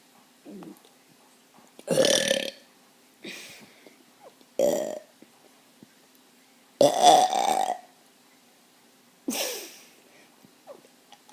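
A person burping over and over, about half a dozen burps a second or two apart, the loudest and longest about seven seconds in.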